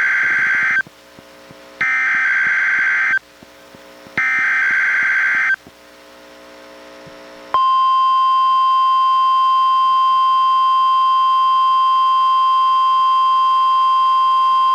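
NOAA Weather Radio alert through a Reecom R-1630 weather radio: warbling bursts of SAME digital header tones, each just over a second long with about a second between them, then after a two-second gap the steady 1050 Hz warning alarm tone of the weekly test begins and holds.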